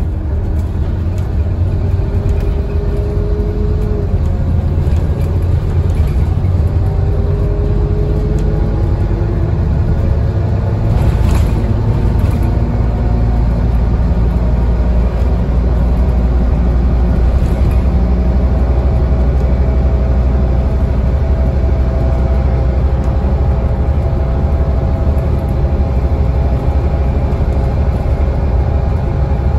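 Scania N230UD double-decker bus being driven hard: its five-cylinder diesel engine and ZF automatic gearbox pulling with a deep steady rumble inside the bus. A rising tone drops back about four seconds in and again about eight seconds in, then climbs slowly through the rest.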